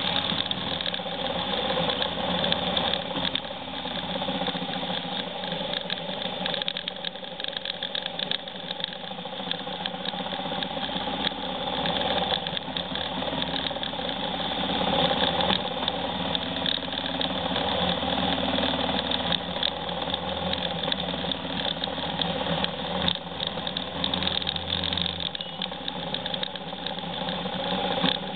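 Motorcycle engine running at low road speed, heard on board the moving bike, steady with small rises and falls in pitch and level.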